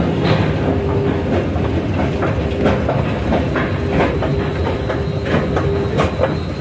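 Escalator running as it carries a rider up, its steps clacking in an even rhythm about two or three times a second over a low rumble and a faint steady hum.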